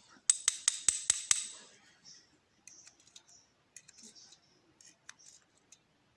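A quick run of about six sharp metallic clicks in the first second and a half, then scattered fainter clicks and light scrapes: small lock pins and springs being handled as a pin-tumbler lock is gutted.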